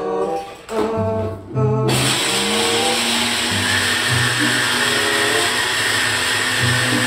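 Background music with a repeating bass line. About two seconds in, a loud, steady whirring noise like a small electric appliance's motor starts suddenly and keeps running under the music.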